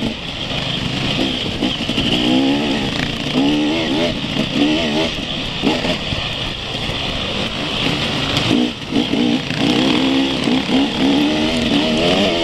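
Enduro motorcycle engine heard close up from the moving bike, revving up and down over and over as it is ridden along a dirt trail, over a steady hiss.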